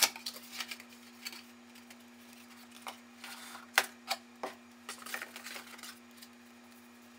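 Cardboard watch box being handled and opened: lid and paper flaps scraping and tapping, then the round cardboard inner box lifted out and set on the table, with a sharp knock about four seconds in. A steady low hum runs underneath.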